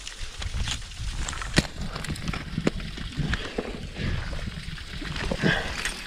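Ice climber's heavy breathing and grunts. Several sharp knocks of an ice axe and crampons striking ice come through, over a steady low rumble of wind on the helmet-camera microphone.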